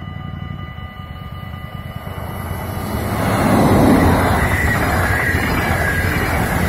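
NS double-deck electric passenger train approaching and passing close by, its wheel-and-rail noise swelling to a loud steady rush about three seconds in.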